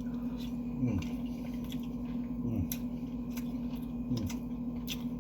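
Mouth and eating sounds from someone eating sushi: soft clicks and smacks, with three short sounds dropping in pitch about a second and a half apart, over a steady low hum.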